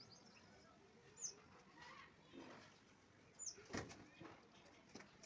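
Faint short, high chirps of a small bird, spaced a couple of seconds apart, with a few soft knocks a little before four seconds and near the end.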